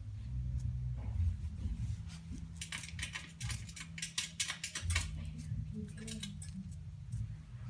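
A Pomeranian's claws scratching and tapping at the gap under a TV stand and on the wooden floor as it paws for a tennis ball stuck beneath, in quick runs of clicks, the busiest stretch from about two and a half to five seconds in and another run near the end, over a low steady hum.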